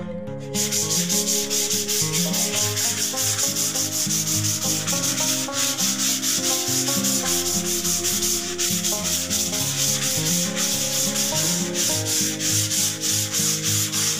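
Plywood panel being hand-sanded with a folded sheet of sandpaper: fast back-and-forth scratchy strokes, several a second, starting about half a second in and going on without a break.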